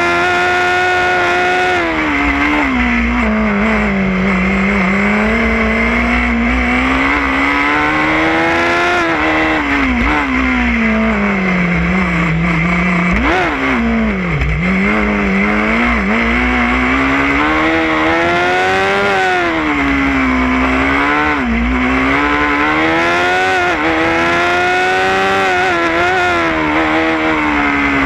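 Formula SAE race car's engine, heard from the car itself, revving up and down continuously as the car accelerates and slows through a cone course; the pitch climbs and falls several times, with a sudden short spike in pitch about halfway through.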